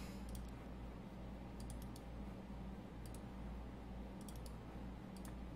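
Faint computer mouse clicks, a few at a time and spread out, over a steady low electrical hum.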